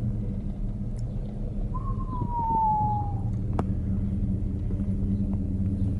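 Steady low hum of a vehicle's engine and road noise heard from inside the cabin. About two seconds in comes a brief tone falling slowly in pitch, and a single sharp click follows shortly after.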